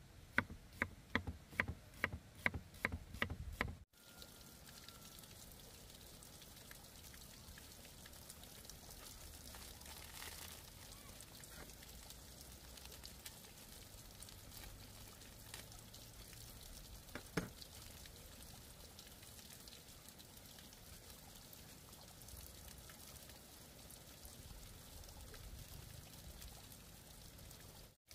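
Cleaver chopping on a thick wooden chopping block, about nine quick even chops in the first four seconds. Then comes a quieter stretch of seasonings being shaken and poured into a steel pot, with a few light clicks and one sharp knock about halfway through.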